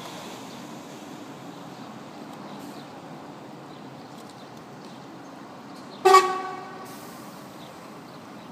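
One short blast of an IDBUS coach's horn about six seconds in, a single pitched honk that dies away within about half a second and is by far the loudest sound. Beneath it runs a steady low rumble of coach engines.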